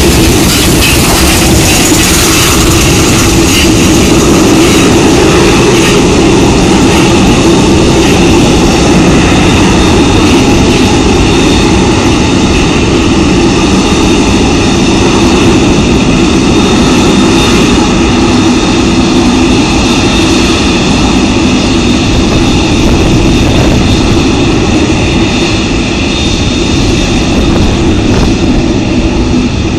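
Boeing 747-8F freighter's four GEnx turbofan engines running at taxi power as the jet pulls away: a loud, steady jet roar with a whining tone on top. The highest hiss slowly fades as the aircraft moves off.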